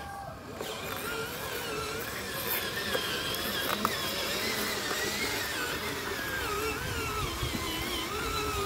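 Toy RC truck's motor and gearbox whining as it drives under a load of soil, the pitch wavering up and down with the throttle. A single sharp click near the middle.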